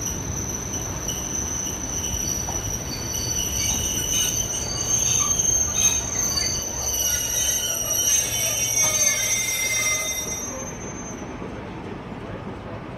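Steel wheels of passenger coaches squealing as the train rounds a curve, heard from a carriage window: several high-pitched squeals over a low rolling rumble. The squeal is loudest in the middle and dies away about ten and a half seconds in.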